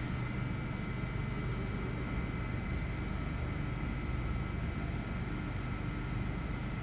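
NS Sprinter (SLT) electric multiple unit standing at the platform, its onboard equipment running with a steady hum and faint high, even whine tones over a low rumble.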